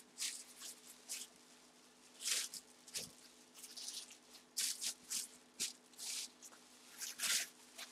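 Clear plastic bag and bubble wrap crinkling and rustling in short, uneven bursts as they are handled and pulled away from a boxed helmet.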